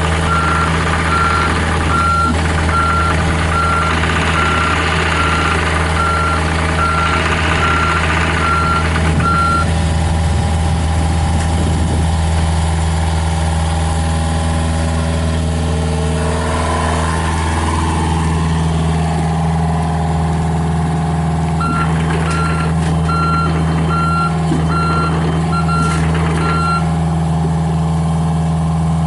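John Deere 50G mini excavator's diesel engine running steadily while its alarm beeps about once a second as the machine moves, for the first nine seconds or so and again for about five seconds near the end.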